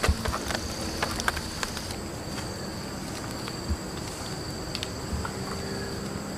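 Insects droning steadily in the forest, two constant high-pitched tones, with a few sharp crackles and clicks in the first second and a half and occasional soft knocks later.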